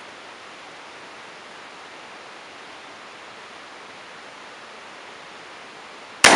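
Steady background hiss, then near the end a single sharp shot from a PTRD-41 anti-tank rifle firing a homemade blank: a shortened 24-gauge shotgun shell in a turned adapter case, with a 209 shotgun primer and a light starting load of 50 grains of FFg black powder. The report is not very loud for such a rifle.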